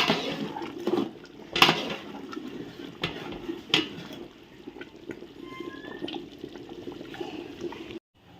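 Chicken kurma in a large cooking pot: liquid sloshing, with a few sharp metal knocks. It cuts off abruptly shortly before the end.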